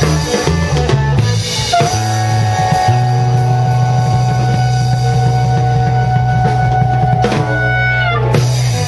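Background music with a drum kit and bass. A rhythmic bass line gives way after about two seconds to long held notes, which end near the end.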